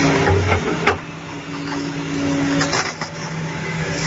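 Heavy machine's diesel engine running steadily, with a few short, sharp knocks.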